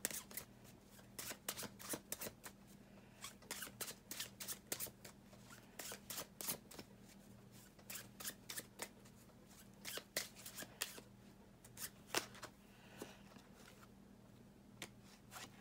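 A deck of playing cards being shuffled by hand: quick, soft card clicks and flicks in irregular runs with short pauses, over a faint steady hum.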